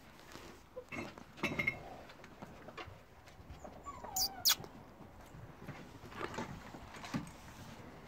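Puppies moving about on a wooden deck: scattered light knocks and scrapes of paws on the boards, with a short falling squeak from a puppy about four seconds in.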